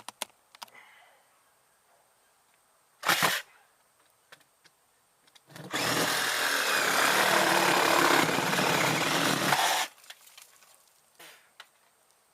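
Handheld power tool running in a short burst about three seconds in, then steadily for about four seconds before cutting off.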